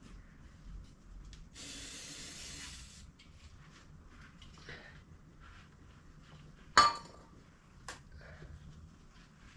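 Aerosol brake cleaner sprayed in one burst of about a second and a half, then handling noises and one sharp metallic clink, with a smaller click a second later.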